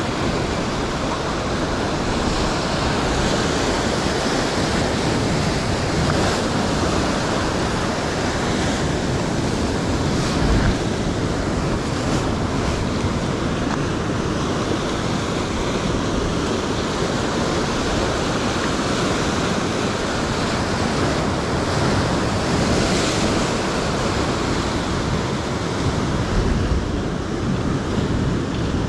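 Ocean surf washing and foaming over the rocks just below, a steady rush of white water with a couple of louder surges, about a third of the way in and near the end.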